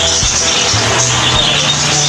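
Background music with a bass line of held low notes that step up in pitch about a second in.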